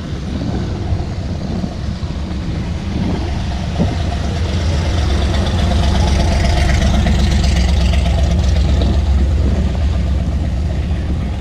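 A car engine running close by with a deep, steady rumble. It grows louder through the middle and eases off near the end, like a car rolling past.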